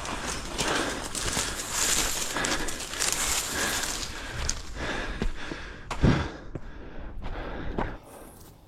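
Rustling and scuffing with several thumps, the loudest about six seconds in, from people scrambling and running with a handheld camera; the noise drops away suddenly near the end.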